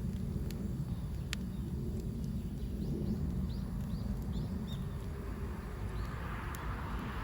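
Outdoor ambience: a steady low rumble with a few sharp clicks and several short bird chirps in the middle. Near the end a rising hiss swells in, like a passing vehicle.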